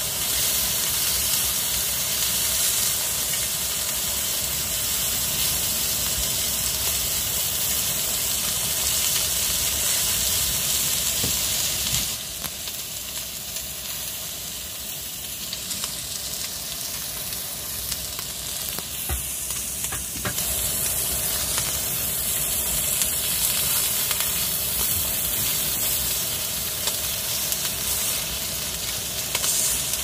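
Meat slices, garlic cloves and mushroom slices sizzling steadily on a hot mini camping griddle. About twelve seconds in the sizzle becomes quieter, and it builds back up later on.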